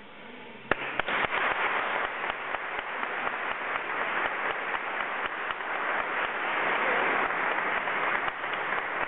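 Audience applause starting with a sharp clap under a second in, then dense and steady.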